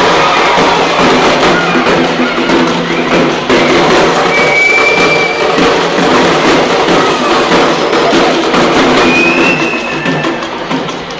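Loud, dense music with drumming, the beat of parai frame drums played in an ensemble. Two short high tones sound out over it, about four and a half and nine seconds in.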